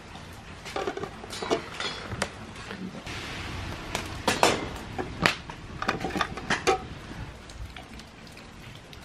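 Steel pots and bowls clinking and knocking: a string of sharp metallic clanks over several seconds, the loudest a little past the middle.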